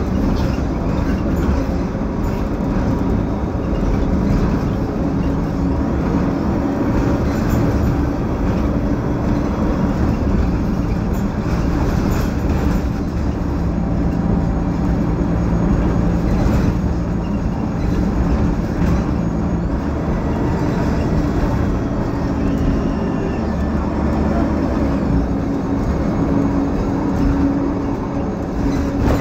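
The Cummins ISL9 inline-six diesel engine and Voith D864.5 automatic transmission of a 2015 Gillig Low Floor 40-foot bus, running while the bus is under way. It is a loud, steady drone with whining tones that shift in pitch as the bus goes.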